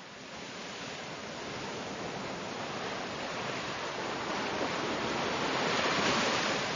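A steady rush of sea surf that fades in from silence, swells to its loudest about two-thirds of the way through and eases slightly near the end.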